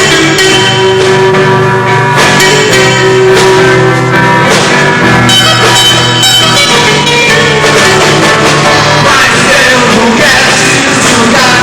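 Rock band playing live at full volume, with guitar, bass and drums, recorded close up during a sound check.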